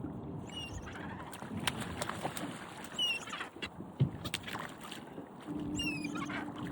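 Seabirds giving short, high, falling calls a few times over water-and-boat background noise. There is a sharp knock about four seconds in, and a steady low hum starts near the end.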